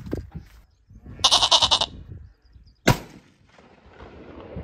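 A loud goat-like bleat lasting under a second, then about a second later a single sharp rifle shot.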